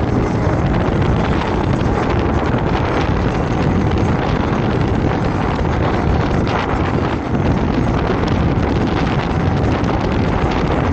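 Steady wind rushing over the microphone of a camera mounted on a moving electric scooter.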